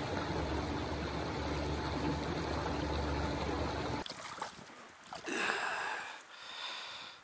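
Small fishing boat running across the lake: a steady motor drone with water rushing past the hull, cutting off about four seconds in. Quieter water splashing and knocks from the bow follow, with a louder splash around a second later.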